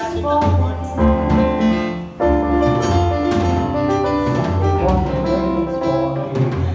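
Live band playing a song, with steady bass notes under chords that change every second or so.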